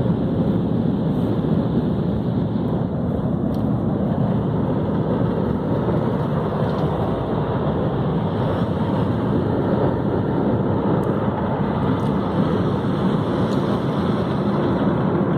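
Automatic car wash heard from inside the car's cabin: a steady, even rushing noise with no let-up, with a few faint ticks.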